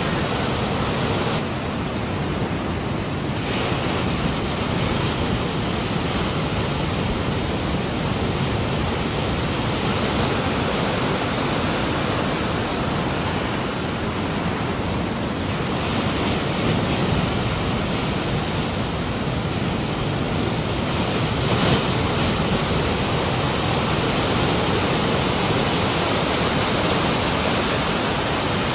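Ocean surf rushing steadily, an even wash of wave noise with no single crash standing out.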